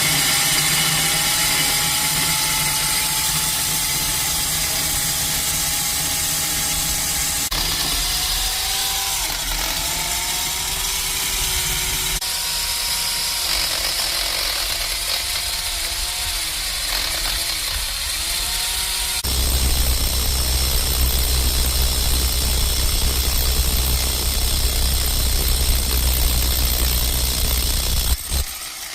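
Core drill with a core bit boring a hole through a wall, its motor running with a steady whine that sags and recovers under load. About two-thirds of the way through, a heavier low grinding sets in, and it stops shortly before the end.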